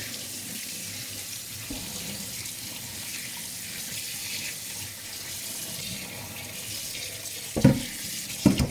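Tap water running steadily, rinsing the flattening mud off a whetstone. Two short knocks near the end.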